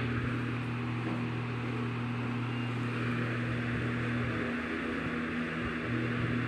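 A steady low mechanical hum with an even hiss over it; the lowest part of the hum drops out for about a second a little past four seconds in, then returns.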